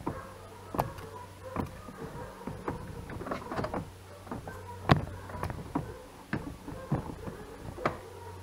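Irregular plastic clicks and knocks as a Ford Focus MK2 headlight housing is worked loose and lifted out of its mounting, with one sharp knock about five seconds in, over a faint low hum.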